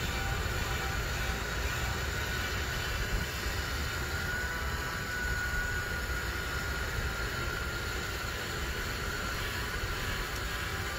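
Electric rotisserie motor slowly turning the nested stainless steel rings of a gyroscopic grill basket: a steady low rumble with a faint, slightly wavering high whine.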